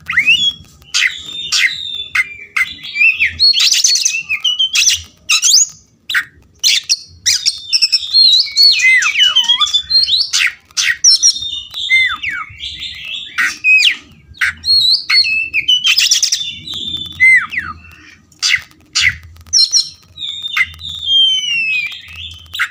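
Oriental magpie-robin singing: a fast, varied run of whistled notes, chirps and sliding phrases, mixed with sharp clicking notes, with hardly a pause.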